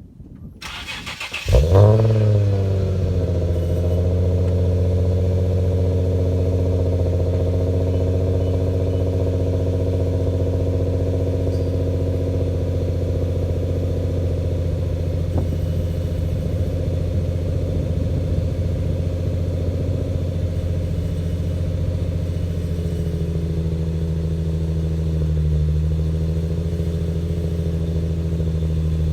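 2008 Infiniti G35x's V6 through a Pro-1 aftermarket exhaust starting cold: it cranks and catches about a second and a half in, flares up briefly, then settles into a steady fast idle. Near the end the idle note drops slightly.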